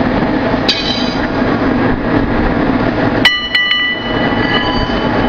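Ring rolling machine running steadily as it rolls a red-hot steel flange ring, with two sharp metallic clanks, one under a second in and a louder one past three seconds, each ringing on briefly with high clear tones.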